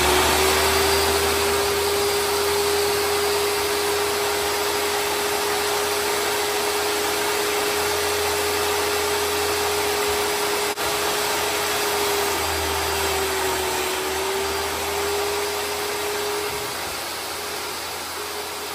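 An electric motor running steadily with a constant hum under a rushing noise, typical of a shop vacuum or power tool. The hum dips slightly in pitch once, then fades out near the end as the whole sound slowly gets quieter.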